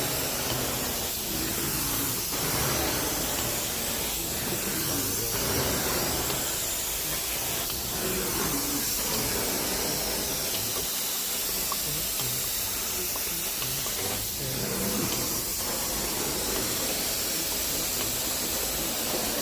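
Carpet-cleaning extraction wand spraying and sucking up water in a steady, unbroken hiss.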